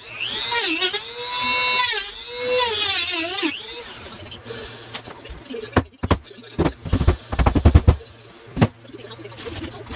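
Cordless drill/driver running in two bursts, its motor pitch rising, holding and dropping each time, as screws are driven out of the layout's benchwork. This is followed by a series of knocks and thuds from boards and parts being handled.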